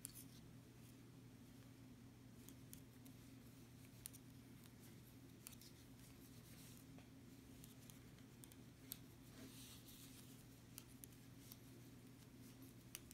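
Near silence, broken by faint, irregular light clicks of metal circular knitting needles as stitches are slipped from one needle to the other, over a steady low hum.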